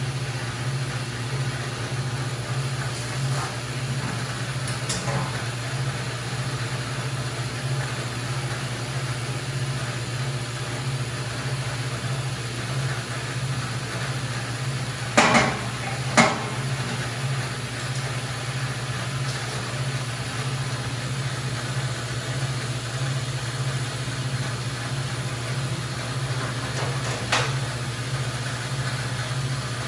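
Grob NS18 vertical band saw running idle, its electric motor and blade drive giving a steady hum. A couple of sharp knocks come about halfway through and another near the end.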